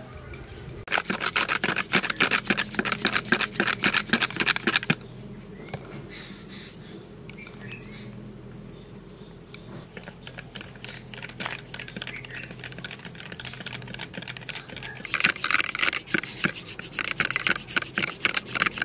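A small wire whisk twirled between the palms like a curd churner, rattling fast against a glass tumbler as coffee, sugar and hot water are beaten into a thick dalgona cream. There are two bouts of rapid clicking, the first starting about a second in and stopping about five seconds in, the second starting near the end, with quieter whisking between them.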